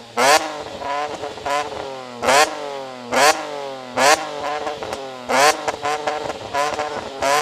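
BMW E46 M3's S54 straight-six being blipped repeatedly, heard close at the quad exhaust tips: a string of sharp throttle blips roughly once a second, each rising and falling in pitch and dropping back between them.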